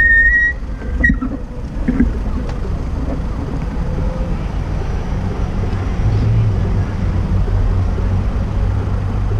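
City street traffic: a steady low engine drone from idling and passing vehicles, stronger from about six seconds in. A high squeal cuts off about half a second in, and there is a sharp knock about a second in.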